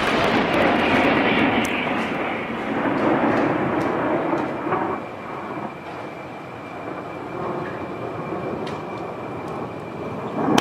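Artillery shells exploding on a distant hillside: a long rolling rumble echoes and slowly fades, with smaller swells from further impacts, and another sharp blast near the end.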